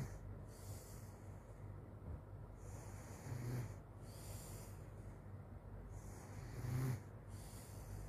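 A sleeping child snoring: three low snores about three seconds apart, the last one the loudest, with hissy breathing between them.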